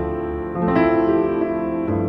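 Background piano music: slow sustained chords, with a new chord struck about half a second in and another near the end.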